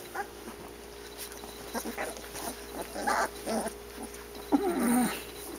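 Two-week-old Boerboel puppies making small whimpers and grunts, with one longer, louder whine about four and a half seconds in.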